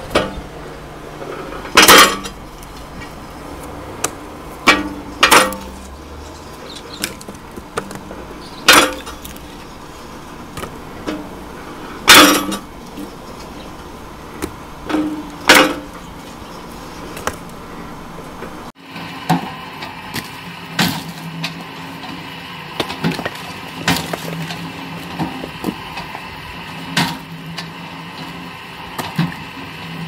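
Firewood processing machine at work on logs: loud, sharp knocks of wood about every three and a half seconds, with lighter knocks between. After a sudden cut, a busier run of quicker, lighter knocks and clatter.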